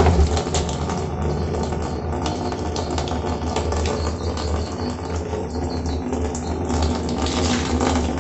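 Water from a homemade PVC-pipe sediment filter outlet pouring in a steady stream into a partly filled drum, splashing and crackling continuously on the water surface, with a steady low rumble beneath.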